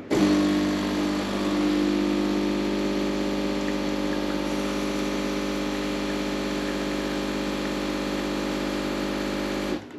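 Gaggia Cadorna Plus espresso machine's pump running with a steady hum as it pushes water through the coffee for a shot. It starts suddenly and cuts off near the end.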